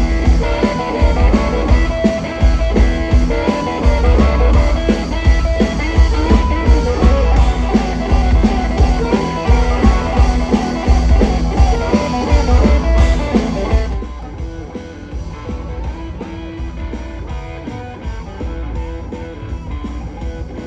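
Live blues-rock band playing loud: harmonica, electric guitar and drums with a steady beat. About 14 seconds in it drops suddenly to quieter guitar music.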